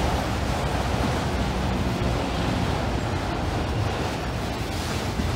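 Freight train of empty auto rack cars rolling past, a steady rumble of steel wheels on the rails.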